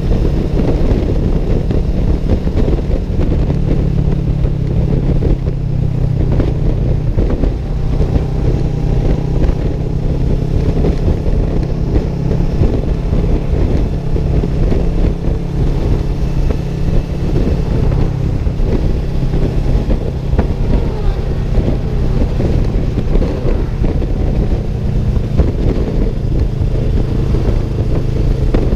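Steady engine hum with road and wind noise from a vehicle driving along a highway.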